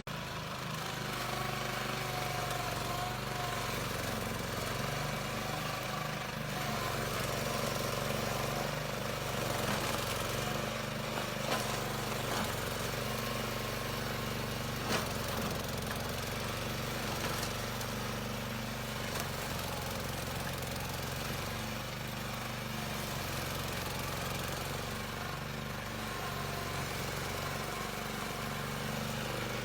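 Engine of a remote-controlled lawn mower running steadily, with a few brief knocks about halfway through.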